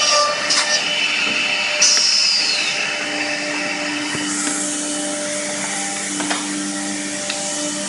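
A woodworking CNC side drilling machine running with a steady hum and whine made up of several held tones over a hiss. A few clicks sound at the start, and a short hiss falling in pitch comes about two seconds in.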